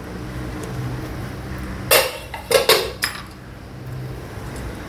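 Stainless-steel pressure cooker and utensils clanking: a few sharp metal clatters about two to three seconds in, over a low steady hum.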